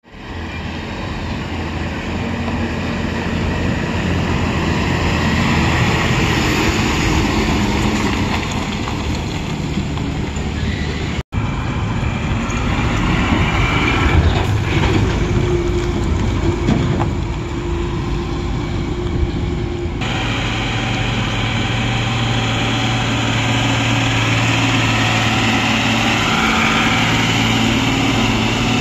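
Heavy diesel trucks climbing a steep hairpin bend, their engines running under load with tyre and road noise. The sound changes abruptly twice, about 11 and 20 seconds in; it is loudest around 14 seconds in as a tipper passes close, and in the last part there is a steady low engine note from a loaded multi-axle lorry.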